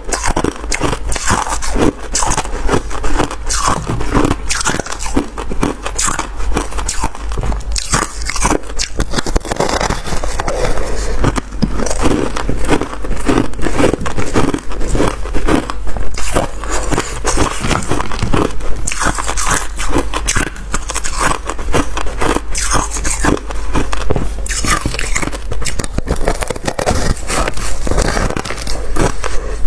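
Crunchy freezer frost being bitten and chewed: continuous crunching and crackling of ice.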